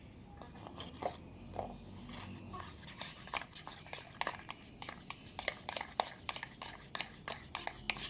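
Irregular clicks and taps of a utensil against a bowl while slime glue is being mixed, coming thicker and faster after the first few seconds.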